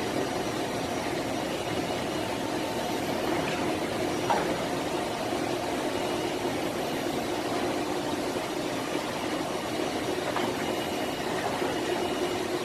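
Steady mechanical hum of a powered-up Doosan gantry machining center at rest, spindle not yet turning, with a single short knock about four seconds in.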